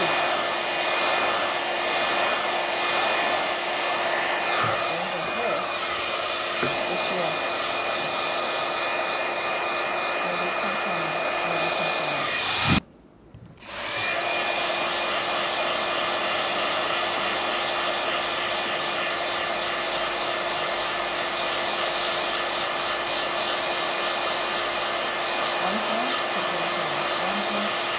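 iTeraCare terahertz wand's built-in fan blowing steadily, a hair-dryer-like whirr with a steady hum. It cuts out abruptly after a click about halfway through, then picks up again about a second later.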